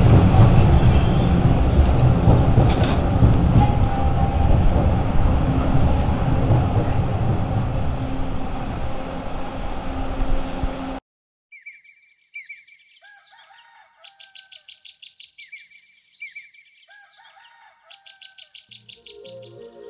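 Toronto subway train rumbling at a station platform, a loud low rumble that slowly fades for about eleven seconds before cutting off abruptly. Songbirds then call and trill in short repeated phrases, with music coming in near the end.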